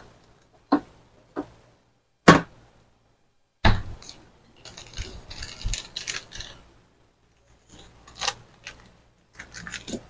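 Kitchen handling sounds: several sharp knocks and clatters on the counter, with about two seconds of rustling in the middle, as a stick of butter is brought over.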